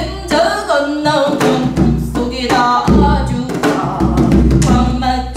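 A woman singing pansori in a strong, sliding voice, accompanied by strokes on a buk barrel drum, struck with a stick and the palm.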